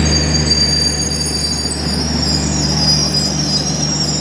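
Garib Rath Express coaches rolling past on arrival, their wheels squealing in several high, wavering tones, over a steady low hum from the train's diesel-generator power car.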